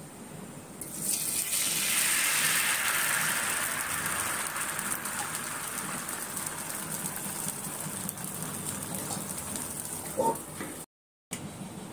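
Spinach ghavne batter sizzling as it hits a hot oiled pan: the hiss swells sharply about a second in, then slowly dies down as the batter sets.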